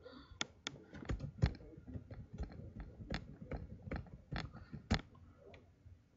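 Computer keyboard keys typed in an irregular run of clicks, stopping about five seconds in.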